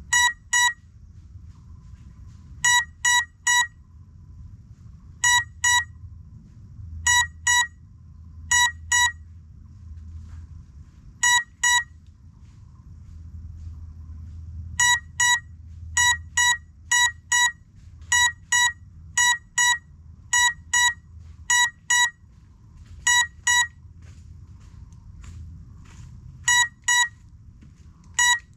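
A downed FPV drone's lost-model beeper sounding in the undergrowth: short high beeps, mostly in pairs, repeating every second or two, with a faint low rumble beneath. It is the locating beacon that signals the drone has crashed and is waiting to be found.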